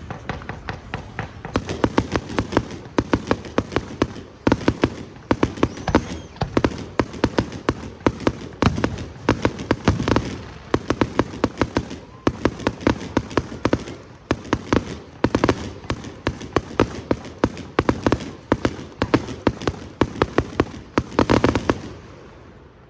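Aerial fireworks going off in a rapid barrage, many sharp bangs and crackles a second, stopping abruptly near the end.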